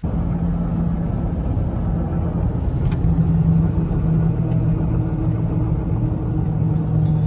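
Pickup truck driving down a paved road, heard from inside the cab: a steady low hum of engine and tyre noise.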